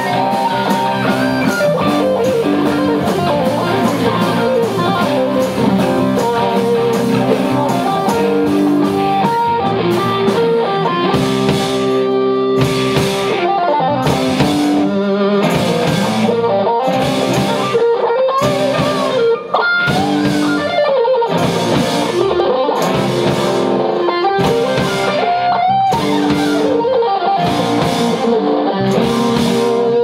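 Live rock band jamming: electric guitar playing lead lines over a drum kit, with drum and cymbal hits beating steadily from about ten seconds in.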